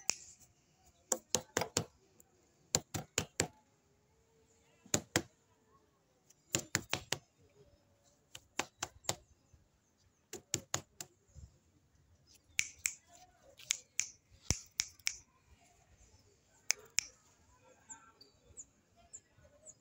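Sharp clicks in quick clusters of three to five, repeating every second or two, with a denser run about two-thirds of the way through and only faint ticks near the end.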